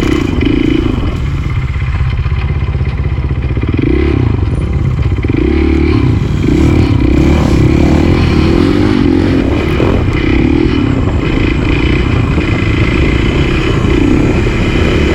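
KTM supermoto's single-cylinder engine running, its revs rising and falling.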